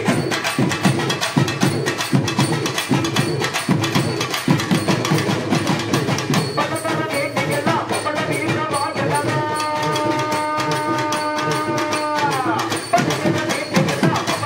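Fast, dense ritual drumming with music. About nine seconds in, a long pitched tone is held for about three seconds and falls at its end.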